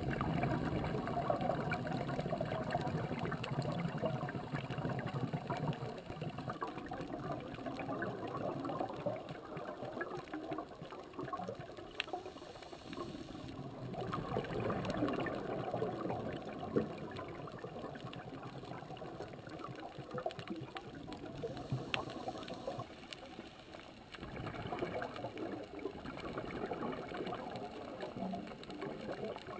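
Muffled underwater bubbling and gurgling through a camera housing, most likely a scuba diver's exhaled bubbles from the regulator. It swells and fades in slow waves every several seconds, with a couple of faint sharp clicks.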